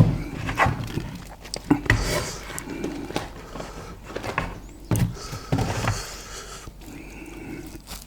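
Close-up eating sounds: irregular chewing, lip smacks and clicks of food in the mouth, with a few hissing breaths drawn in between against the chili heat.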